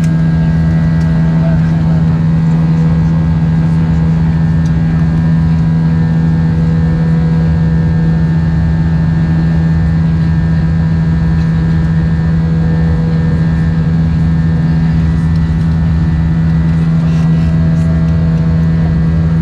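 Airbus A320 cabin noise from its IAE V2500 turbofan engines running steadily in flight: a constant low drone with a strong hum and several fainter steady tones above it.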